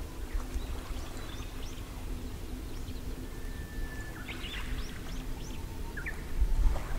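Warbler singing outdoors: a long held whistle a little past three seconds in that breaks into quick up-and-down notes, among scattered chirps of small birds over a steady low hum. A brief low rumble comes near the end.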